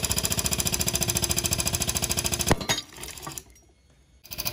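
Air-over-hydraulic pump chattering rapidly as it drives the ram that pulls a glue-in bolt from concrete. About two and a half seconds in there is a sharp crack as the concrete breaks around the bolt. The pump then stops briefly and starts chattering again near the end.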